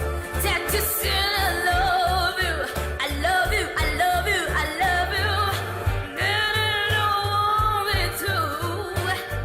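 A young female singer's bluesy vocal, sliding and bending through long held phrases with vibrato, over a band with an evenly pulsing bass line.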